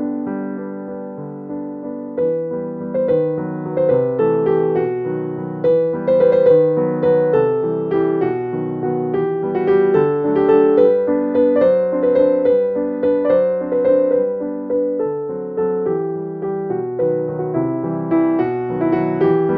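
Background piano music: a gentle melody of struck notes at a steady pace.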